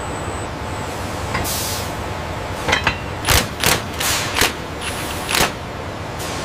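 Steady factory machinery noise, with a brief high hiss and then a quick, uneven series of about eight sharp knocks or clicks through the middle.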